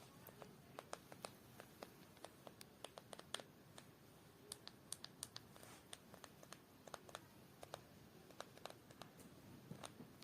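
Faint, irregular small clicks and taps of objects being handled by hand, a few each second, over low room hiss.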